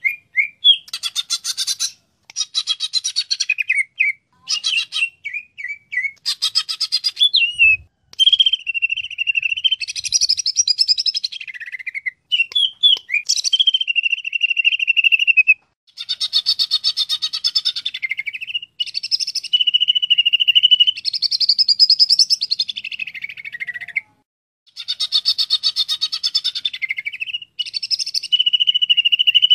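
Cucak ijo (green leafbird) singing loudly in repeated phrases: rapid buzzy trills alternating with steady, high whistled notes, each phrase broken by a brief pause.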